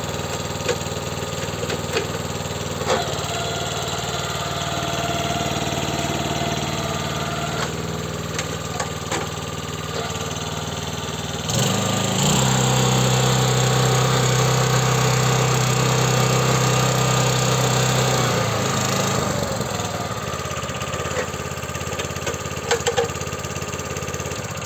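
Iseki KVR70 tiller's single-cylinder petrol engine (Iseki FE-170G) running steadily. About halfway through it speeds up to a higher, louder steady pitch for several seconds, then drops back to its lower running speed. A few sharp clicks sound over it.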